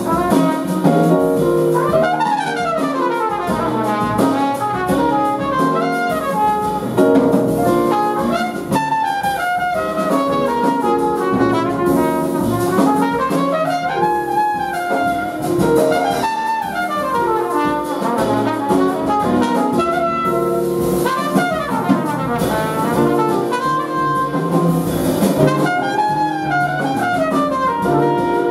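Large jazz ensemble playing live, with brass and saxophones over piano, double bass and drum kit, and melodic lines that repeatedly rise and fall.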